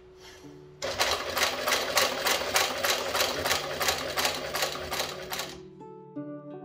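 Industrial sewing machine stitching through a leather sofa cover at an even pace, about four to five stitches a second, starting just under a second in and stopping near the end. Quiet background music runs underneath, with plucked notes after the machine stops.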